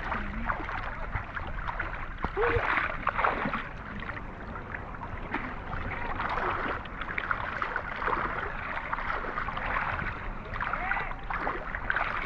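Water splashing and sloshing unevenly, as when hands or a body work through shallow water.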